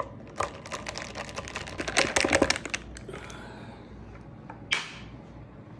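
Ice cubes and a spoon clinking and rattling in a tall glass of iced coffee, a quick run of clicks lasting about two and a half seconds and busiest near the middle, followed by one short scrape a little later.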